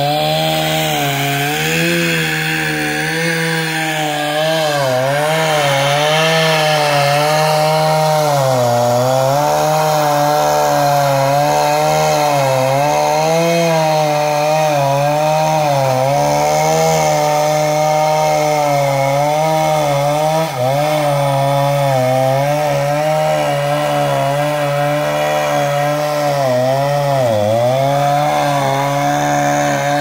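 Stihl MS 290 two-stroke chainsaw running at high revs, cutting into the base of a standing tree. Its pitch sags several times as the saw is loaded in the cut, most deeply near the end.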